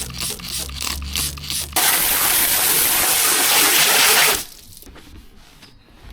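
A spray of water hissing steadily for about two and a half seconds, starting about two seconds in and cutting off sharply, as the dirty area is cleaned. Before it comes a low steady hum with faint ticks.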